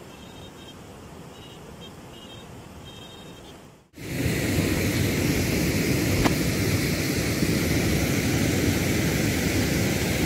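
Quiet outdoor background with a few faint, short high chirps, then a sudden change about four seconds in to steady, loud road and engine noise inside a moving car.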